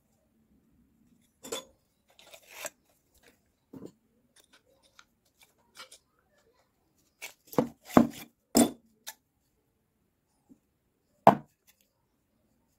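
Knocks, clicks and taps of a small DC motor and a black tube housing being handled on a tabletop as the motor comes out of the tube. The loudest knocks come in a quick cluster past the middle, with one more sharp knock near the end.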